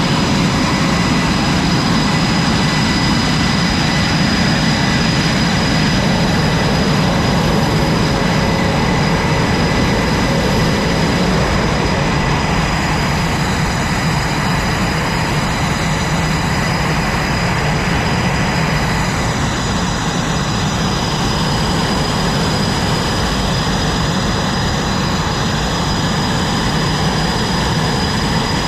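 Jet aircraft engines running steadily on an aircraft carrier flight deck: a loud, even noise with several high whining tones held over it, one of which drifts slightly lower about halfway through.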